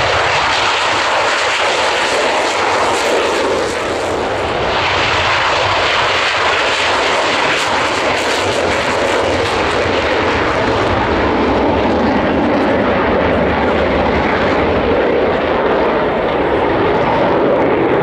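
Two-seat Dassault Mirage 2000 jet taking off and climbing away in afterburner: loud, steady jet engine noise.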